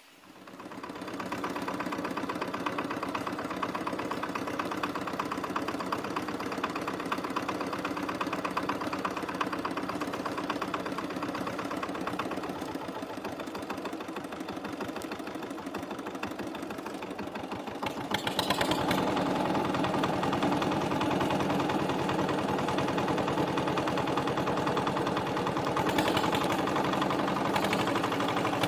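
Small engine running steadily with an even, rapid firing beat; it comes in at the start and gets louder about eighteen seconds in, as if throttled up.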